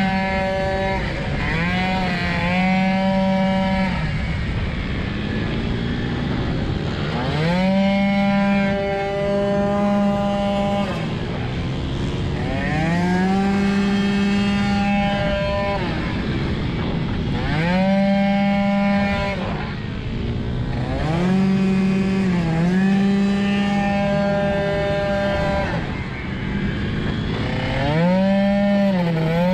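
Tuned 50cc two-stroke scooter engine at full throttle, held at high, nearly constant revs through its automatic transmission, dipping briefly and climbing back about six times as it slows for corners, with wind rushing over the helmet microphone.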